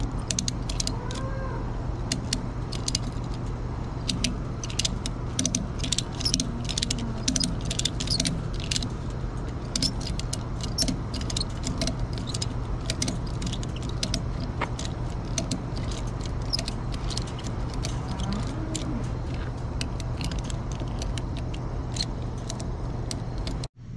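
Ratchet strap being worked by hand: a run of irregular metallic clicks from the ratchet buckle and pawl, with rattling of the metal hardware, as the strap is tightened to pull a snapped wooden post back upright. A steady low hum lies underneath.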